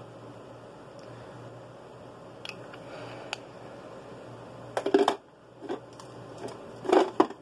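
Handling noises as small makeup items are fiddled with close to the phone's microphone: a couple of light clicks, then two loud clusters of knocks and rustles about five and seven seconds in, over a steady low hum.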